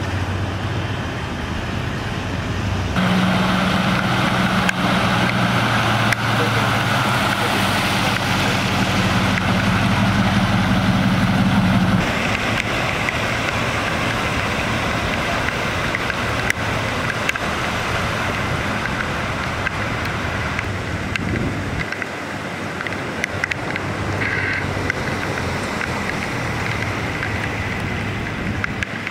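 Vehicle engines idling close by, a deep steady hum through the first part, then a rushing wash of water as a car pushes through deep street floodwater.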